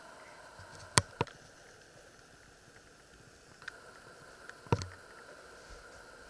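Sharp handling clicks and knocks over a faint steady hum. Two quick clicks come about a second in, then a few knocks near the end, the last a dull thump.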